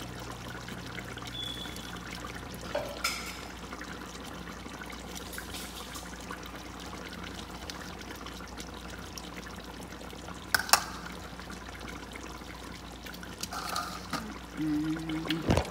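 Fish sauce simmering in a pot on the stove, a steady liquid hiss. A sharp click sounds about ten and a half seconds in, and a few short knocks come near the end.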